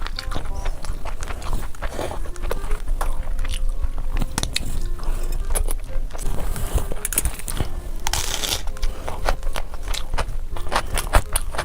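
Close-miked eating: crunchy bites and chewing, with many sharp, irregular crackles.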